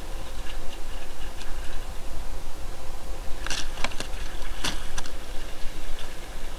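Wind buffeting an action camera's microphone on an open sailboat deck: a steady, fluttering rumble, with a few sharp clicks a little past halfway.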